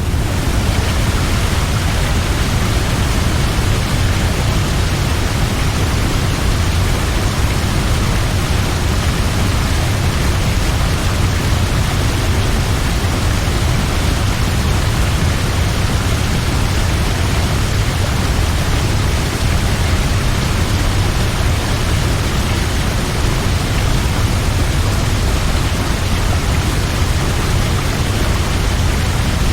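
Large waterfall: a steady, loud, unbroken rush of falling water with a deep low rumble beneath the hiss.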